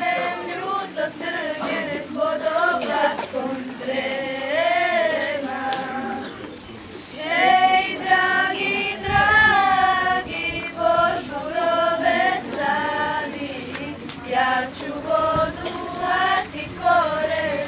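A group of schoolchildren, mostly girls, singing a song together in Serbian. The singing drops away briefly about six and a half seconds in, then comes back louder.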